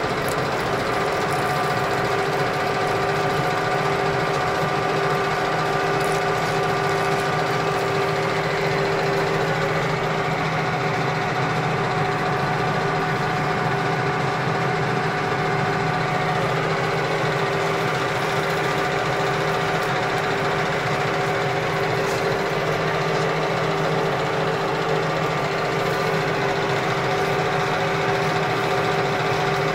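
Metal lathe running steadily, its motor and gear train giving a constant hum with several steady tones.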